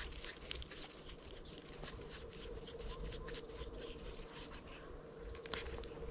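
Faint, irregular small clicks and rustles of fishing gear being handled, over a low rumble and a faint steady hum.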